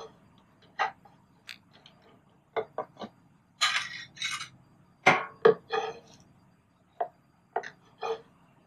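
Kitchen utensils tapping and scraping on a plastic cutting board and a ceramic plate as toasted grilled-cheese sandwich halves are lifted onto the plate. Scattered short knocks, with a few longer scrapes a few seconds in.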